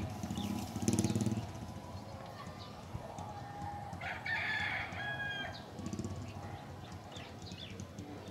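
A rooster crowing once, about four seconds in, a single call of about a second and a half. A brief low rumble comes in the first second or so.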